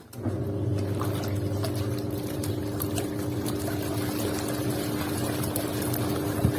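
Toshiba semi-automatic washing machine's wash motor starting up just into the clip and humming steadily as the pulsator churns the water and clothes in the tub.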